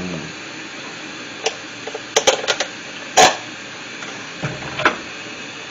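A spoon stirring thick macaroni and cheese in a stainless steel pot: a few scattered knocks and scrapes against the pot, the loudest about three seconds in, over a steady background noise.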